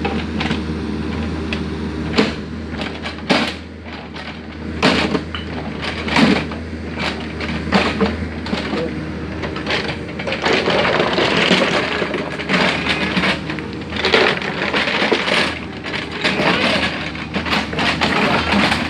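Kobelco excavator's engine running with a steady low hum, over which come many sharp, irregular cracks and knocks of material being broken and moved, busiest in the middle stretch.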